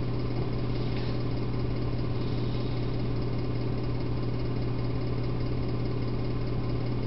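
Steady low hum with an even hiss over it, unchanging throughout, with one faint tick about a second in.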